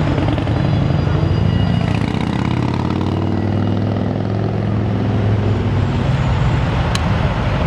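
Road traffic noise with a large vehicle's engine running close by; its pitch rises a little about two seconds in and then holds. A single sharp click comes near the end.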